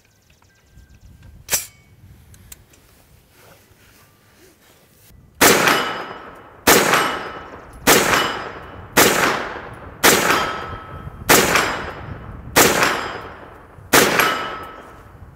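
Faxon Bantam 9mm pistol-caliber carbine fired eight times at an even pace, a little over a second between shots, starting about five seconds in. Each shot is followed by the ring of a hit steel target. One sharp click comes before the shooting.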